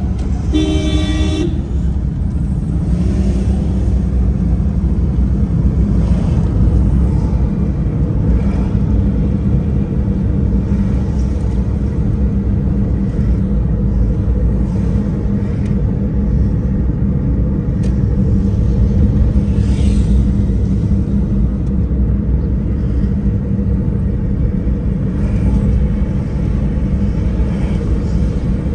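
Steady low rumble of a vehicle driving through traffic, with a short vehicle horn toot about a second in.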